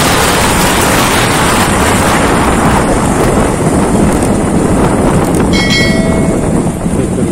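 Wind rushing over the microphone, with road and engine noise, from a motorcycle riding at speed. A short ringing tone sounds about five and a half seconds in.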